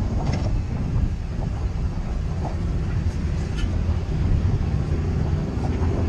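Honda CB500X's parallel-twin engine running steadily as the motorcycle rolls down a rough gravel track, with a few sharp clicks and rattles from the loose surface.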